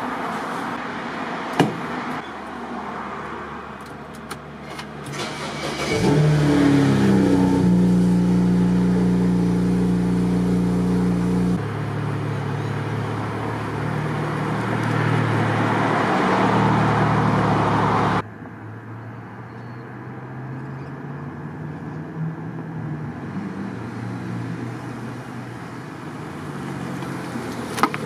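Car driving, its BMW 335i twin-turbo straight-six engine note rising about six seconds in and then holding steady under road noise. The sound changes abruptly twice, as between edited clips.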